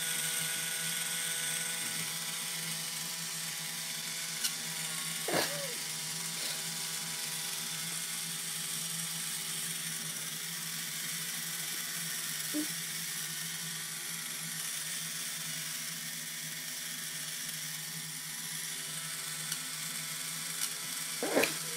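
Battery-powered electric pedicure foot file running with a steady, even motor hum as its roller head spins. Two brief squeaks with a bending pitch come about five seconds in and again near the end.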